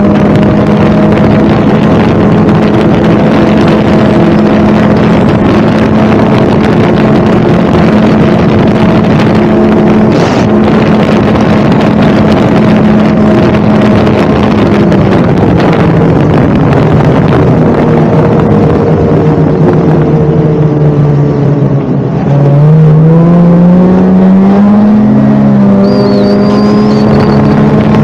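Snowmobile engine running at a steady speed, easing off past the middle so its pitch sinks, then picking up again about three quarters through with a rising pitch as it accelerates.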